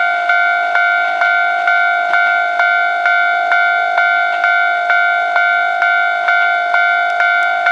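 Japanese railway level crossing warning bell ringing, an even clang repeating about twice a second.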